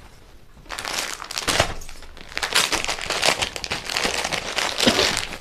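Crinkling and rustling of a folded suit and its packaging being handled on a table, starting about a second in and going on in uneven bursts.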